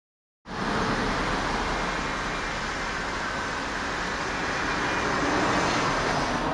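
Steady road traffic noise from passing cars, starting abruptly about half a second in and swelling slightly near the end.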